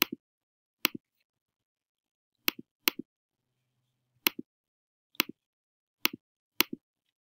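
Laptop trackpad clicking, about eight sharp clicks at uneven intervals, each in two quick parts as it is pressed and released.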